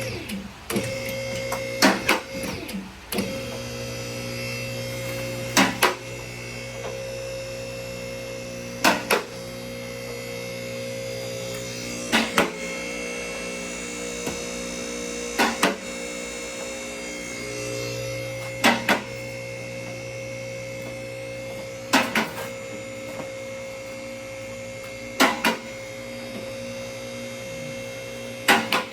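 Electric vehicle lift raising a car body, its motor humming steadily, with a sharp double click of the lift's safety locks about every three seconds.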